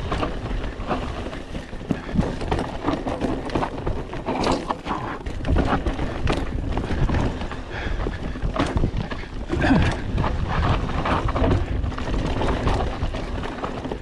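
Mountain bike riding down rough, chunky singletrack: the tyres run over dirt, rocks and roots while the bike rattles with frequent irregular knocks, and wind rushes over the microphone.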